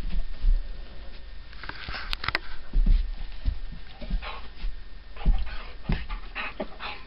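Collie dog making short, breathy huffs and grumbles as it plays with a cat, in irregular bursts, with two sharp clicks about two seconds in.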